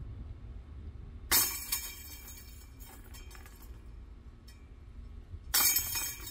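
Two putter discs striking the chains of an Axiom Pro disc golf basket, about four seconds apart: each a sharp clash of chains followed by a jingling rattle as they settle. Both putts are made, the discs dropping into the basket.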